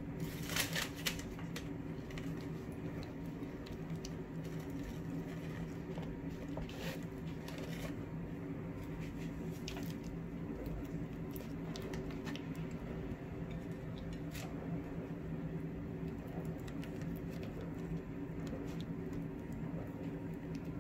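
Soft wet squishing and light clicks as hands push lemon slices into whole sea bass coated in oil and spice paste, a few sharper squelches in the first second and some more around the middle. A steady low hum runs underneath.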